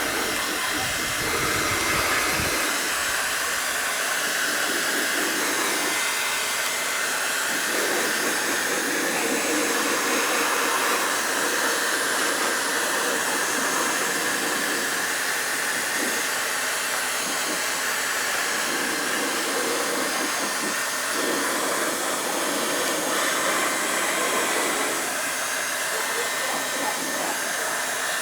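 Electric heat gun blowing hot air steadily over a scooter's plastic panel, a constant even rush with slow swells in its tone.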